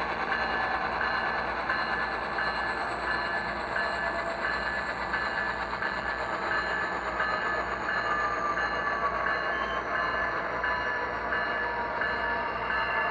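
Model SD70ACU locomotive's ESU LokSound V5 decoder playing diesel locomotive engine sound through its small onboard speaker, steady throughout. A faint whine slowly falls in pitch over the second half.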